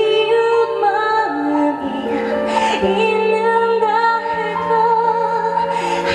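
Live ballad performance over a concert sound system: a slow accompaniment of long, held notes with a woman singing a wavering melody line.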